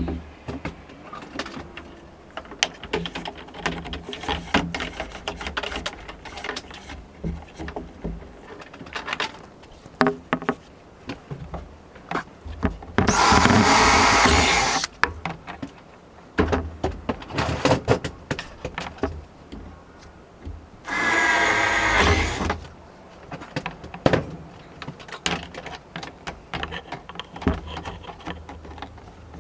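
Power drill run in two bursts, the first about two seconds long and the second about a second and a half, amid scattered clicks and knocks of tools and materials being handled.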